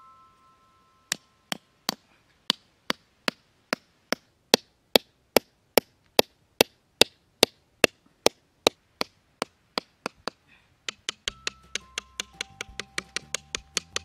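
Wooden stake being driven into hard, sandy ground with the back of a hatchet: sharp, regular knocks, about two and a half a second. Near the end the strokes come faster and background music comes back in.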